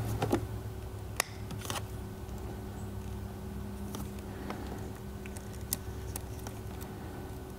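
Scattered light clicks and metallic taps of pliers gripping a battery-charger lead's ring terminal at a car battery post, over a steady low hum.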